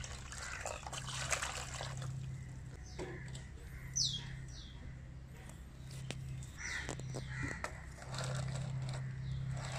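Hydroponic nutrient solution trickling from a plastic bottle into seedling tray cells. A bird calls over it with sharp falling notes about four seconds in, the loudest sound, and calls again around seven seconds.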